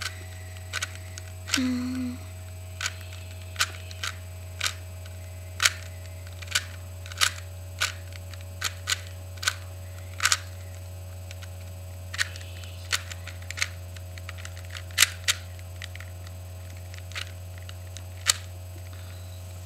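A 3x3 Rubik's cube being scrambled, its faces turned one move at a time, each turn a sharp click at irregular intervals. A steady low mains hum runs underneath.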